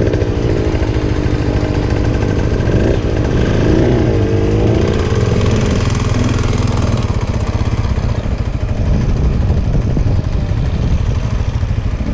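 Off-road motorcycle engines running, their pitch rising and falling with the throttle during the first five seconds, then settling to a steadier, lower engine note.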